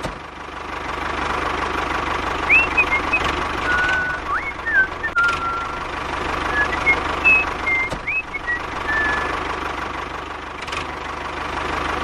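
A small motor running steadily with a fast, even low pulse and a constant whine. Short whistled chirps, like a bird calling, come over it from a few seconds in until near the end.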